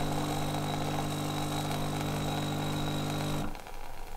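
DeLonghi PrimaDonna Class ECAM556.55.SB bean-to-cup machine's pump humming steadily while espresso runs from the spout. The hum stops abruptly about three and a half seconds in.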